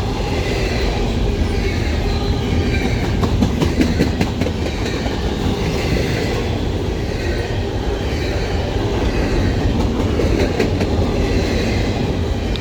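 Norfolk Southern intermodal freight train's container cars rolling past at speed: a steady, loud rumble of wheels on rail, with irregular clicks throughout.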